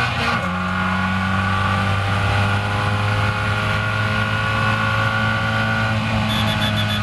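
Caterham Seven race car's engine heard from the open cockpit under full acceleration: an upshift just after the start drops the revs, then the engine note climbs steadily as the car pulls from about 77 to 100 mph. A quick run of sharp ticks comes near the end.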